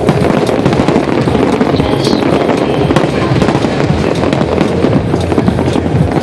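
Aerial fireworks going off in a continuous barrage: many overlapping bangs and dense crackling, steady throughout with no pause.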